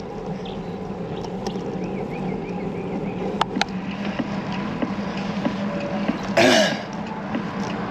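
Steady wind and road noise from riding along a street, with a low hum underneath and two faint clicks about three and a half seconds in. About six and a half seconds in comes a single short, loud cough-like burst from the rider.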